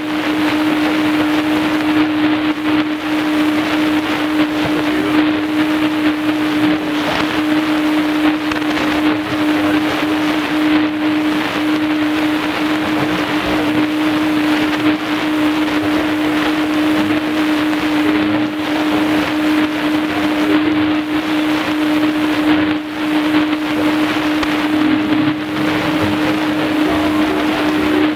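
Shortwave reception on a Tecsun PL-310ET portable receiver: a loud, even static hiss with a steady low whistle held through it, typical of a heterodyne beat from a carrier on a nearby frequency.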